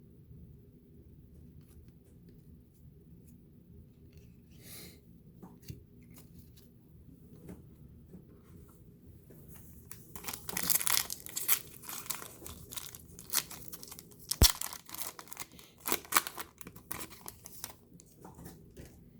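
Plastic trading-card pack wrapper being torn open and crinkled by hand. Faint handling clicks come first, then about halfway through a loud stretch of tearing and crackling plastic with one sharp snap.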